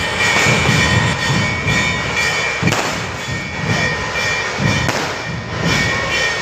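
Loud, dense outdoor city ambience: a continuous low churning rumble of traffic and activity, with a few sharp cracks, about two seconds apart, near the middle and the end.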